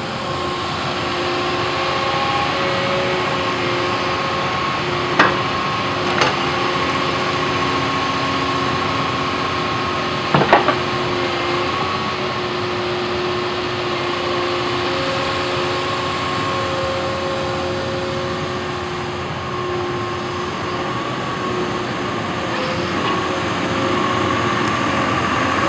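Cat 324E excavator running steadily, its engine and hydraulics giving a whine of several held tones, with sharp metal clunks about five, six and ten seconds in.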